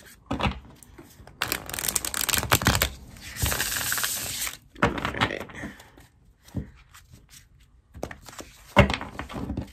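A Light Seer's tarot deck being shuffled by hand. Two long stretches of riffling rustle start about a second and a half and three and a half seconds in. Short sharp clicks of the cards come in between and near the end.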